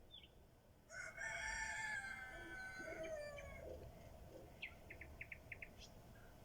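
A rooster crowing once, a long crow starting about a second in and lasting some two and a half seconds. Near the end a nightingale sings a quick run of about six short, high repeated notes.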